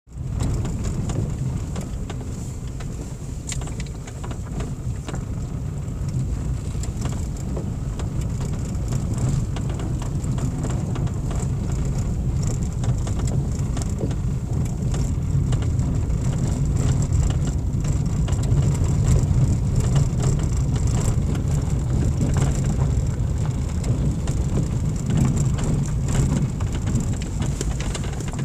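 Car driving on a gravel road, heard from inside the cabin: a steady low rumble of engine and tyres, with scattered light ticks throughout.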